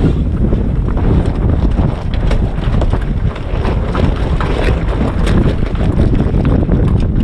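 Strong wind buffeting the microphone aboard a Flying Fifteen sailing in high wind, with water rushing along the hull and frequent short slaps.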